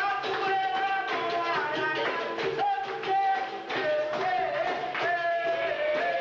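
Live capoeira roda music: a singing voice over berimbau, with hand clapping in time.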